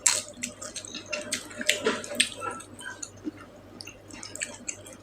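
Close-miked eating: wet chewing and mouth smacking, a quick run of small wet clicks, busiest in the first half and thinning out towards the end.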